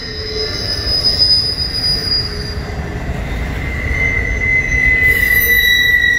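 Steel wheels of a passing double-stack intermodal train's well cars squealing against the rail over a steady low rumble. Several high held tones sound at once, and the strongest one grows louder about halfway through.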